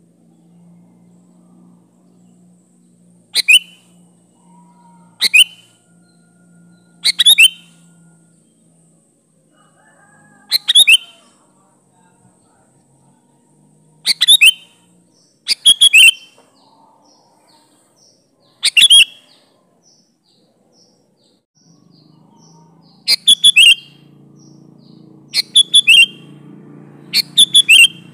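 Sooty-headed bulbul calling: about ten short, loud, high phrases, each a quick cluster of bright notes, repeated every couple of seconds and sometimes in quick pairs.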